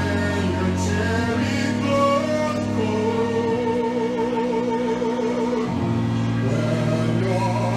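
Live music: a singer holds long notes, one with a slow vibrato, over sustained chords and a held bass note that changes near the end.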